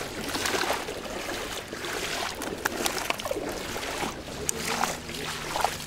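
Footsteps splashing through shallow water, with water sloshing and streaming out of a mesh fish keepnet as it is carried along.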